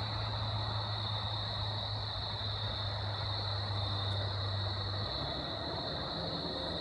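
Steady high-pitched evening insect chorus, with a low steady hum underneath that shifts up in pitch about five seconds in.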